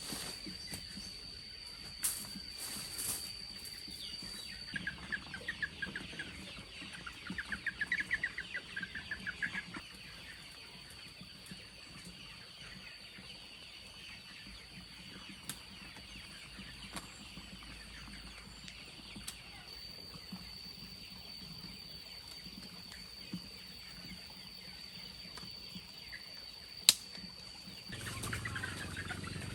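Chickens clucking, with a quick run of repeated clucks between about five and ten seconds in, over a thin steady high tone. A single sharp click sounds near the end.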